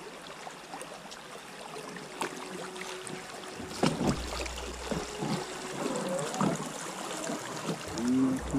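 Water lapping and splashing against a small boat on a river, with a few scattered knocks.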